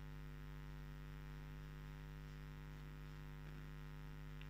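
Faint, steady electrical mains hum: a low buzz with a ladder of even overtones that does not change.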